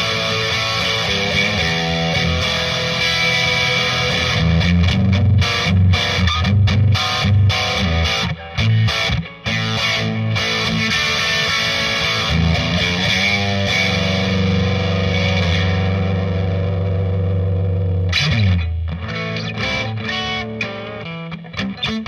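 Overdriven electric guitar through a Marshall DSL40C valve combo on its green crunch channel, pushed into saturation by a Timmy overdrive pedal and heard through a Celestion Cream Back speaker. It plays distorted riffs and chords, then a low chord rings for about four seconds and cuts off short, followed by lighter, choppier playing.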